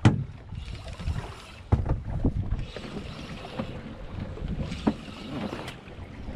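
Wind buffeting the microphone on a small boat at sea, with a few sharp knocks, the loudest right at the start.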